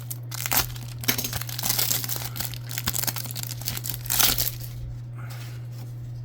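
Trading-card pack wrapper crinkling and tearing as it is opened by hand, in a run of rustles with the loudest tear about four seconds in. A steady low hum sits underneath.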